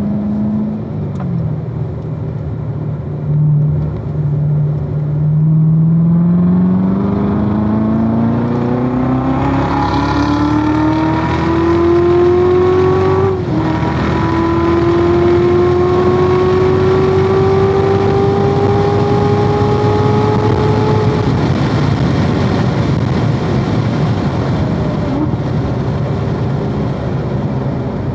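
2016 Corvette Z06's supercharged 6.2-litre V8 at speed on track. The engine holds steady, then rises in pitch under hard acceleration. It drops sharply at a quick upshift about halfway through and pulls up again. Near the three-quarter mark it lifts off to a lower, steady drone.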